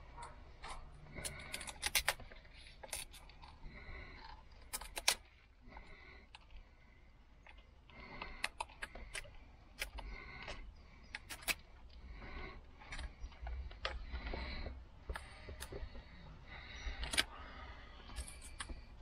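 Small scissors snipping double-sided foam tape around the edges of a reversing-camera monitor, in irregular sharp clicks and snips with short rustles as the monitor and its cable are handled.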